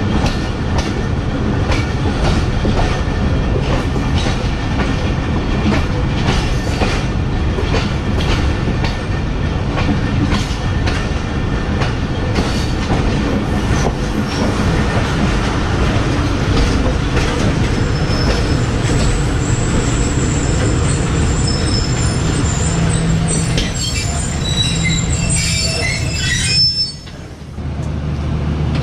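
Passenger train running on the rails with its wheels clacking over joints, then high squealing from the wheels and brakes in the second half as it slows for the station. Near the end the sound cuts briefly and gives way to a steady low hum.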